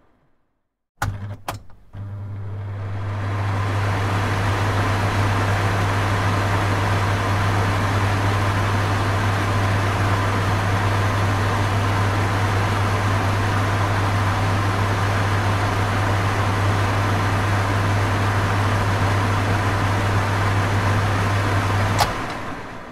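Kitchen exhaust fan switched on with a couple of clicks: a low hum starts at once and the rush of the spinning fan builds up over the next two seconds, then runs steadily. Near the end a click switches it off and it starts to wind down.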